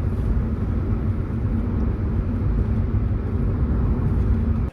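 Steady low vehicle rumble, loud and unchanging, starting and cutting off abruptly.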